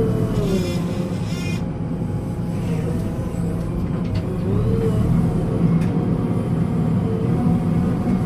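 Backhoe loader's diesel engine running steadily, with a tone that dips and rises in pitch several times as the load changes. A brief high squeal is heard about half a second in.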